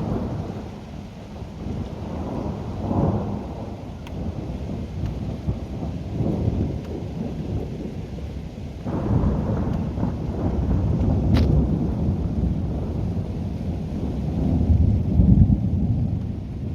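Thunder rumbling over steady rain. A louder, longer roll begins about nine seconds in and swells near the end.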